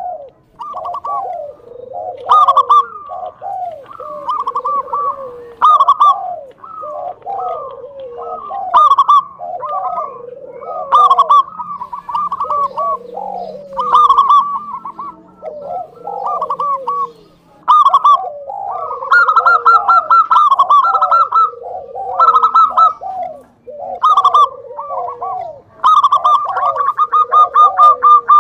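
Zebra dove (local perkutut) cooing in full song, phrase after phrase every second or two: a quick rolling run of notes followed by lower, falling coos.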